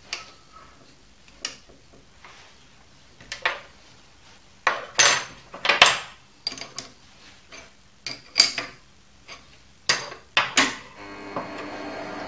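A series of sharp metal-on-metal clinks and knocks, a few of them bright and ringing, around the chuck and toolpost of an Optimum D180 x 300 mini lathe. About eleven seconds in the lathe's spindle motor starts and runs with a steady hum, turning the four-jaw chuck.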